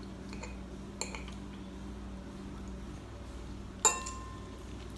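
A metal eating utensil clinks sharply once against a dish a little before the end, ringing briefly, after a softer tap about a second in, over a low steady hum.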